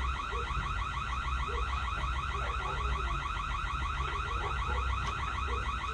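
A continuous, rapidly pulsing high warble, like an electronic alarm or buzzer, over a steady low hum.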